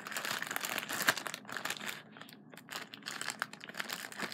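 Plastic zip-top bag crinkling and crackling as it is handled by the zipper, easing off briefly about two seconds in.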